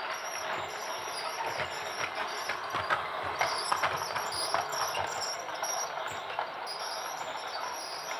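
Toy train running, a steady rattle with irregular sharp clicks.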